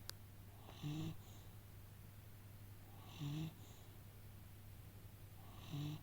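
Snoring: three short snores about every two and a half seconds, each a brief low buzzing breath.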